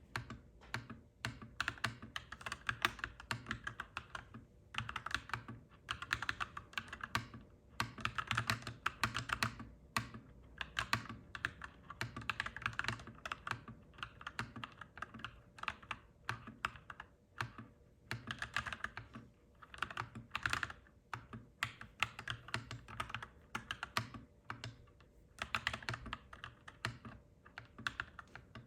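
Mechanical keyboard typing, clacky, in quick bursts of keystrokes with short pauses between them.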